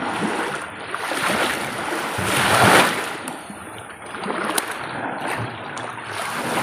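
Small waves washing in at the shoreline beside a beached outrigger boat, swelling to a louder wash about two and a half seconds in and then easing off, with a few faint knocks.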